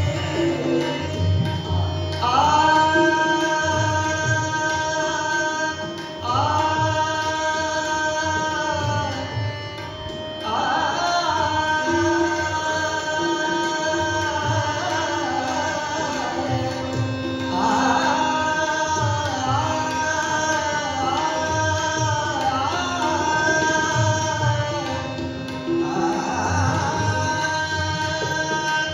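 A male vocalist sings an Indian devotional-style song in long held phrases of a few seconds each, with tabla keeping a steady rhythm and harmonium accompaniment.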